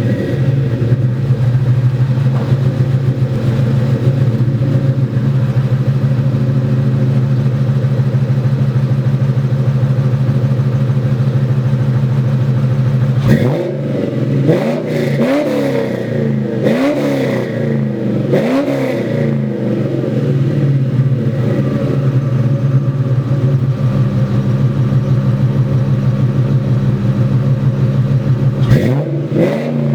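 2004 Ford Mustang GT's 4.6-litre V8 breathing through headers, an X-pipe and Flowmaster Super 40 mufflers, idling steadily. About halfway through it is revved in several quick blips, each rising and falling, then settles back to idle, with one more rev near the end.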